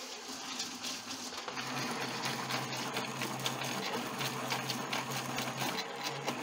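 Small belt-driven toy rock tumbler running with sand and rusty nuts and bolts in its drum: a steady motor hum under a fast patter of small clicks as the load tumbles. The hum becomes stronger about a second and a half in.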